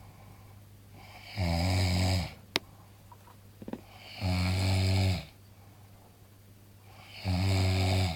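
A man snoring loudly: three long, low rattling snores about three seconds apart, with a single sharp click between the first and second.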